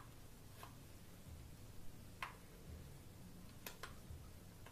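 A few faint plastic clicks from a Samsung Galaxy S3 Mini's back cover being pried off, with two close together about three and a half seconds in. The cover is stiff to open.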